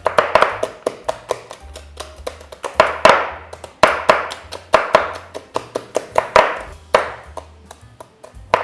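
Two knives, a chef's knife and a cleaver, chopping crispy deep-fried pork belly on a wooden cutting board in a rapid, uneven run of sharp chops, about three or four a second, over light background music.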